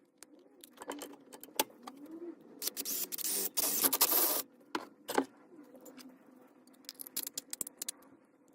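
Hand work on small metal parts: scattered clicks and clinks, with a harsh scraping about three seconds in that lasts under two seconds, and a quick run of clinks near the end.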